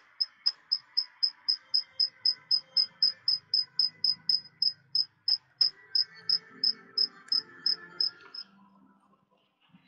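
A rapid, even train of short high-pitched pips, about four a second, over a faint steady background; the pips stop about eight seconds in.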